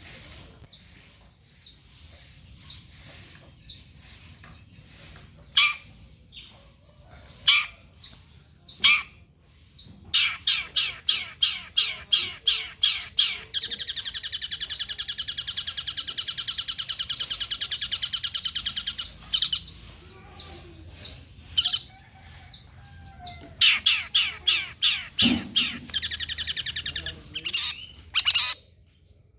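Long-tailed shrike (cendet) singing: runs of sharp, high repeated chirps, with a fast, dense trill held for about six seconds midway. It is a lure song of the kind bird keepers play to make other shrikes answer.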